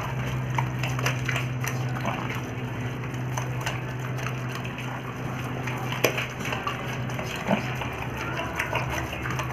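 Two pigs eating moist rice mash from a metal bowl: wet, sloppy chewing and snuffling with scattered clicks of snouts and teeth against the bowl, the sharpest knock about six seconds in. A steady low hum runs underneath.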